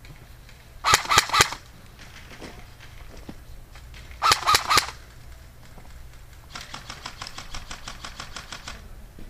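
Airsoft guns firing: two short, loud bursts of about four shots each, about three seconds apart. Later comes a longer, fainter string of rapid shots, about nine a second, lasting a couple of seconds.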